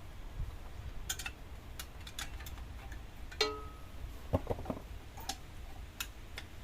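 Light metallic clicks and taps of exhaust heat shield fittings being handled and worked into place, with one short ringing clink about three and a half seconds in.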